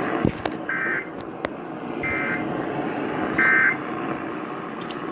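Emergency Alert System end-of-message data bursts: three short, high-pitched two-tone warbling squeals, each about a third of a second and about 1.3 seconds apart, received on an AM radio over steady static hiss. They mark the end of the station's EAS test alert.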